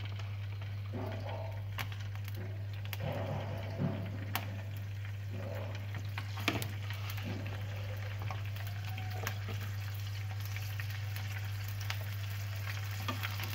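Parboiled chicken pieces sizzling and crackling in shallow cooking oil in a nonstick frying pan as more pieces are added with chopsticks, with scattered sharp pops. A steady low hum runs underneath.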